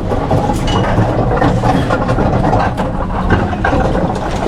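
A heavy engine running at idle, with scattered knocks and clanks over the low rumble.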